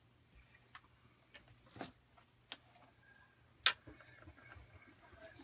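Sharp, irregular clicks and taps, about six in all, as small metal weight cubes and plastic wheels are set down on a digital scale and workbench. The loudest click comes a little after halfway.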